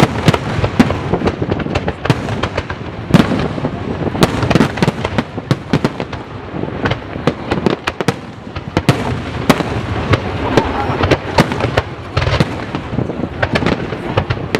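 Fireworks display going off: many sharp bangs in quick, irregular succession over a steady rumble of crackling bursts.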